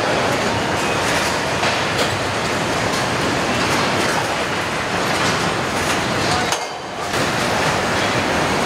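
Car assembly line noise: a steady din of machinery and overhead conveyors with scattered metallic knocks, dipping briefly about two-thirds of the way through.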